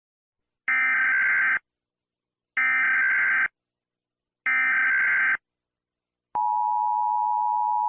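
Emergency Alert System signal: three identical bursts of warbling digital header tones, each about a second long and a second apart, then about six and a half seconds in the steady two-tone attention signal starts.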